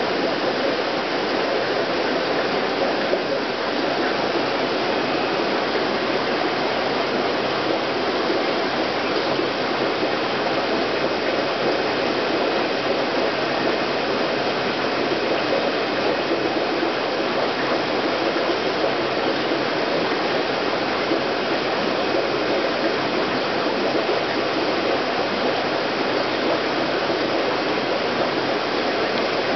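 Steady rushing of water in an aquarium, from its filter and aeration, with no breaks or changes.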